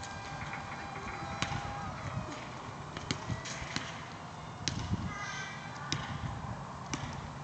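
Faint whine of a FunJet RC plane's electric motor, holding one pitch and then sliding lower about two seconds in, over a steady hiss with a few scattered sharp clicks.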